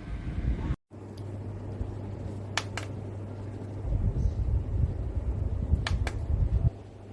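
Rechargeable USB circulator desk fan running with a steady hum, its airflow rumbling on the microphone, louder for a few seconds in the middle. Two pairs of sharp clicks sound, one about two and a half seconds in and one about six seconds in.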